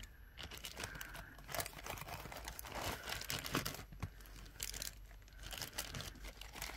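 Small clear plastic zip bag crinkling as it is handled, with scattered light clicks from small wire pieces being picked up and set down.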